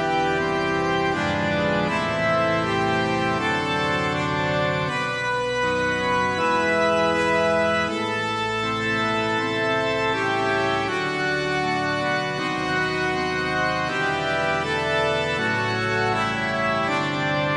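Organ playing a prelude in sustained, slowly changing chords.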